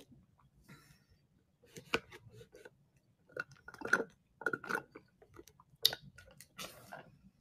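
Close-up chewing and mouth sounds in irregular bursts, with a few sharp clicks.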